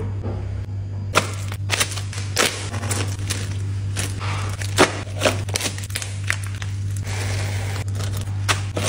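Small zip-top plastic bags of whole spices and seeds being handled and pressed shut: crinkling plastic with many sharp clicks and rustles, starting about a second in. A steady low hum runs underneath.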